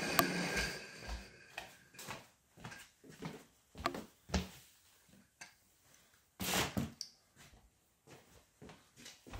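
Footsteps on a wooden floor, a knock every half second to a second, with a faint whir from the wind-up car's spring-driven gears dying away in the first second or two. About six and a half seconds in comes the loudest noise, a short clatter as the 3D-printed plastic car is picked up.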